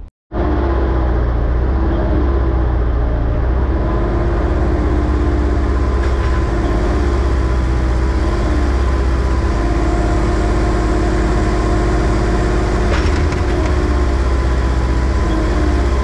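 Kubota KX161 mini excavator's diesel engine running steadily under hydraulic load, heard from inside the cab as the bucket is worked to its limit. The engine holds its speed without dropping, though it is a machine diagnosed with low power at the main pump.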